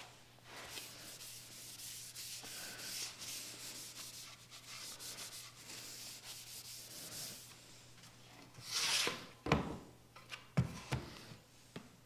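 A cloth rubbing oil into the edges of a wooden cutting board: a faint, steady rubbing hiss for about seven seconds. Near the end comes one louder scrape, then a few knocks as the board is handled and stood on end on the bench.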